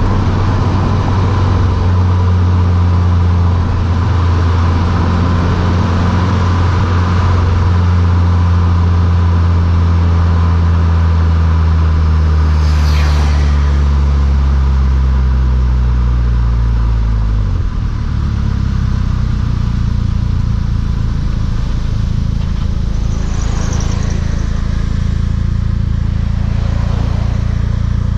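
Mk6 Volkswagen GTI's turbocharged four-cylinder running through a Beluga aftermarket exhaust, a steady deep drone. Its pitch falls gradually over several seconds about halfway through, then holds steady at a lower note. Two brief whooshing sweeps come in over it, one around the middle and one near the end.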